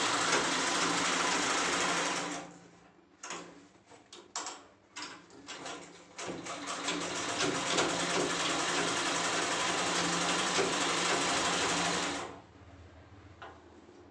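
Sewing machine stitching fabric: it runs steadily for about two seconds and stops, a few short knocks follow while the cloth is shifted, then it runs again steadily for about six seconds and stops near the end.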